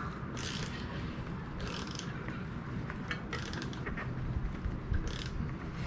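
Ratchet wrench clicking in about four short bursts as it is worked back and forth, tightening a bicycle cassette lock ring to 14 Nm.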